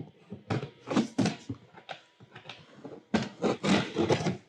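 A cardboard shipping box being opened by hand: quick scrapes and rips of cardboard and tape in two spells, the second starting about three seconds in.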